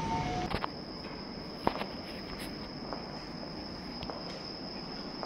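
A steady high-pitched whine, one unbroken tone that starts about half a second in, with a few light footstep taps on a hard floor. A short falling two-note beep sounds just as it begins.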